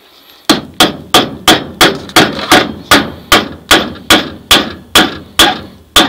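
A hammer drives a galvanized nail into a cedar board with steady, even blows, about three a second, starting half a second in.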